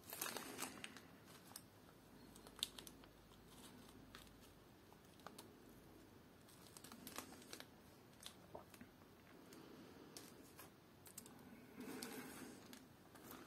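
Small plastic parts bags and packing being handled in a cardboard kit box: faint crinkling and rustling with scattered light clicks, a little louder at the start and again near the end.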